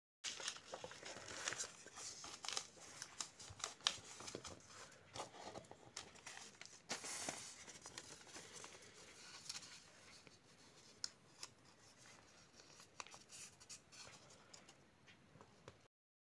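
A strip of ruled paper being folded and creased tightly by hand, crinkling and rustling with many sharp little clicks, busier and louder in the first half.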